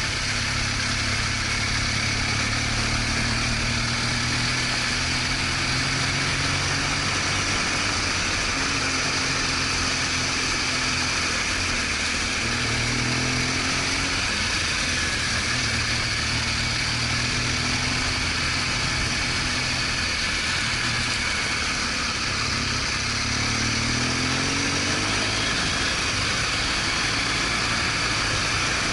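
BMW R1200GS Adventure's boxer-twin engine running while the motorcycle is under way, its pitch rising and falling several times with throttle and gear changes, over steady wind and road noise.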